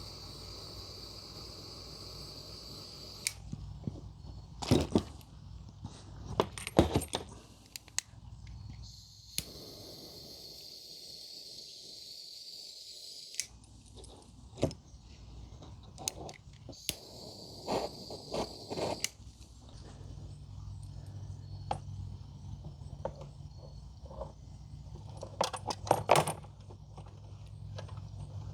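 Scattered metallic clicks, clinks and taps of small connector parts and hand tools being handled, over a faint hiss that starts and stops several times.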